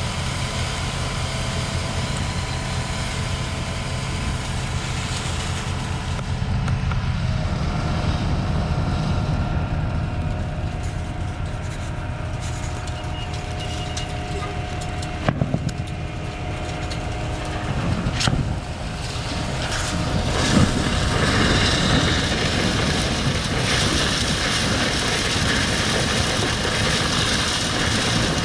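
Concrete boom pump truck running: a steady diesel engine hum under a hydraulic whine. A few sharp knocks come about 15 seconds in, and a rushing noise joins from about 20 seconds on, making it louder.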